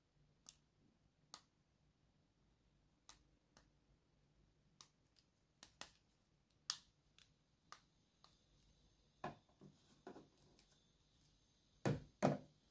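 Scattered sharp clicks and taps of hard plastic from a toy doctor kit's otoscope being handled, then two louder plastic knocks near the end as it is pressed back into its slot in the plastic case.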